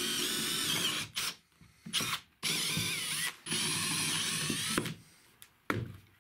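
Handheld electric drill with a twist bit boring through plywood. The motor whines in several runs separated by short stops, its pitch shifting as the trigger is eased and squeezed, and a single knock comes near the end.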